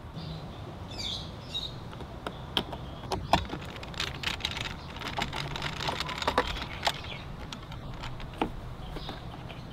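Phillips screwdriver tightening the screw on a scooter battery's positive terminal: irregular small metallic clicks and scrapes, busiest in the middle.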